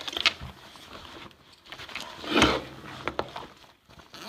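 Hands rummaging through gear in search of a flashlight: scattered clicks and knocks, with one louder rustling thump about two and a half seconds in.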